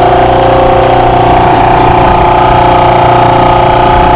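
Portable Rainman watermaker's electric motor and high-pressure pump running steadily soon after start-up, a constant hum with several held tones. It makes a little noise, but not too loud.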